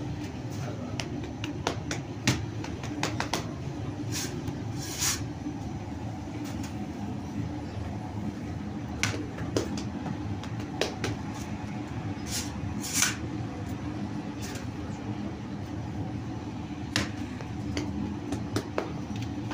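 Steady low hum of bakery machinery, with scattered sharp clicks and knocks of work over it.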